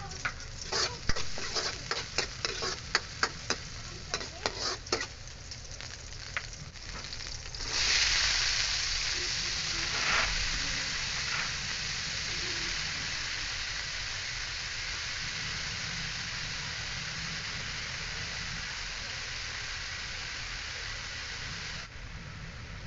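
Garlic and onion frying in oil in a metal wok, with sharp clicks and scrapes of stirring against the pan. About eight seconds in, green beans go into the hot oil and set off a loud, steady sizzle that slowly eases off.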